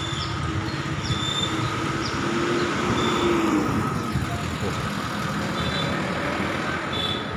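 Steady road traffic noise from passing vehicles. About three seconds in, one engine's note drops in pitch as it goes by.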